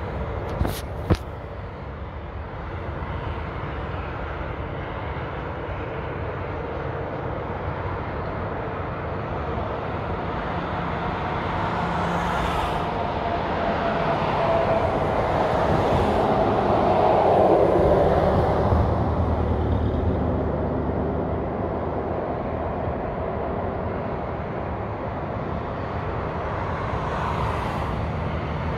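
Interstate highway traffic: a steady wash of tyre and engine noise that swells to its loudest a little past halfway as a vehicle passes close. Two sharp clicks come about a second in.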